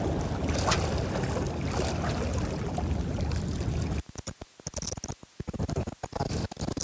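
Steady wind-and-water rush on the microphone by the sea. About four seconds in it drops away abruptly to a run of irregular short clicks and ticks with quiet between.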